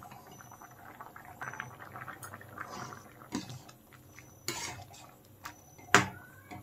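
Metal ladle stirring a kadai of bubbling chana dal with potatoes: liquid sloshing and bubbling with scattered clinks of the ladle on the pan, and one sharp knock of ladle against pan about six seconds in.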